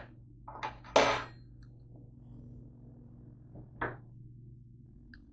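Kitchen things being handled and set down: a few knocks, the loudest a short clattering knock about a second in and another a little before four seconds, over a steady low hum.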